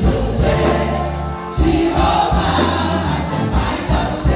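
Gospel music: a group of voices singing over held bass notes that change every second or so.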